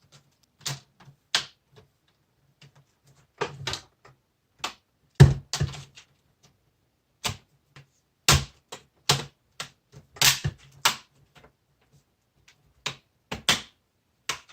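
Plastic snap clips of a laptop's screen bezel clicking into place as it is pressed back on around the display: a string of irregular sharp clicks and snaps, some louder than others.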